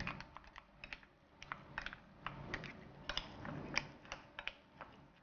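Wooden chopsticks stirring a moist dumpling filling in a ceramic bowl, ticking and tapping against the bowl in quick, irregular light clicks.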